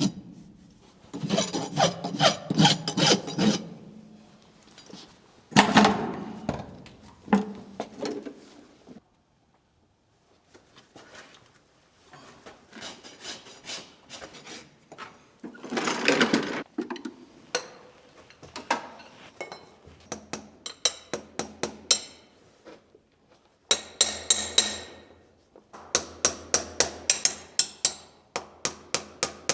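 Farrier's rasp filing a horse's hoof in long scraping strokes, then a hammer striking repeatedly in quick even blows through the second half, some of them ringing.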